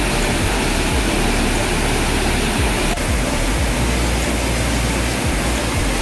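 Steady roar of a wide waterfall pouring over tiers of rock ledges, with an uneven low rumble underneath and a short click about three seconds in.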